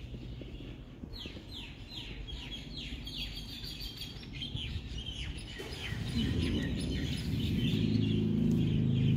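Birds chirping in quick runs of short falling notes. From about six seconds in a low, steady hum with several pitches swells up and becomes the loudest sound.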